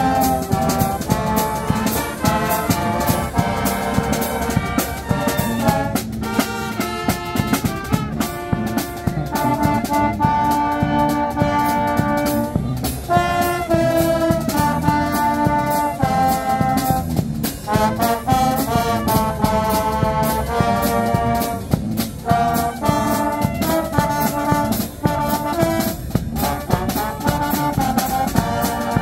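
A dweilorkest, a Dutch street brass band, playing live: brass melody over a steady beat.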